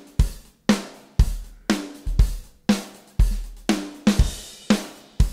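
Recorded drum kit playing a steady beat of kick, snare and hi-hat through the Arturia Comp VCA-65 compressor plugin on the drum bus, with a hit about every half second. A cymbal wash comes in about four seconds in.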